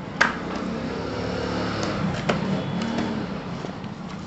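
A cardboard soundbar box being opened by hand, its plastic shrink-wrap and flap handled. There is a sharp snap shortly after the start, rustling and scraping of cardboard and film, and another click about two seconds in.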